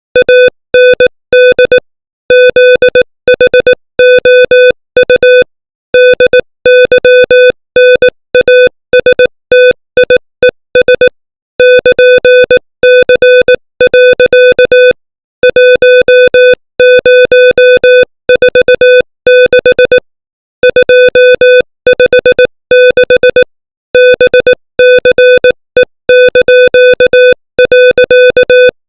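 Morse code sent at 18 words per minute: a single steady mid-pitched tone keyed on and off in short dits and longer dahs, with longer gaps between words.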